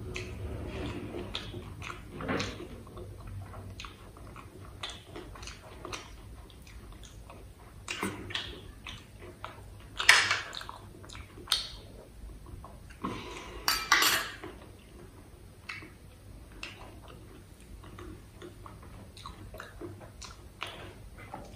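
Close-miked eating sounds: a metal spoon clinks and scrapes against a stainless steel bowl, loudest about ten seconds in and again around fourteen seconds. Between these come many small clicks of chewing and handling food.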